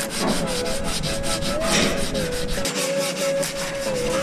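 180-grit sandpaper on a hand sanding block rubbing over cured body filler on car panels, in rapid back-and-forth strokes, shaping the filler smooth.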